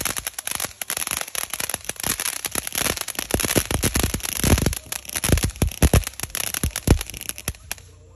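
Fireworks crackling: a dense, irregular run of sharp cracks and pops that stops suddenly near the end.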